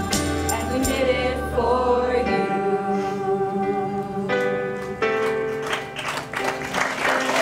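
A song sung by a group of voices with instrumental accompaniment, the notes held long.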